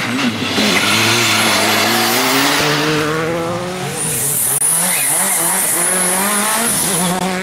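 Rally car engines at full throttle: a four-cylinder turbocharged engine climbs steadily in pitch as the car accelerates past. About three seconds in, a second rally car takes over, its engine note rising and falling through the gears, with a high steady hiss for a few seconds.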